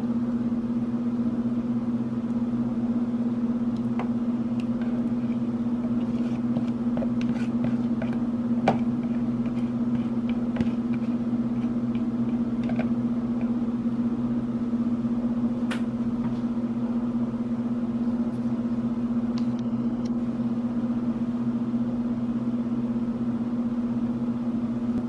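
A steady low electrical hum throughout, with a few light clicks and taps as a silicone spatula scrapes egg mixture and shredded cheese from a plastic bowl into a nonstick skillet.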